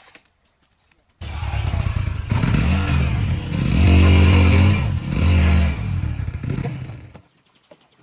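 A motor vehicle's engine running close by, rising in pitch and loudness and then fading away. It starts suddenly about a second in and dies out near the end.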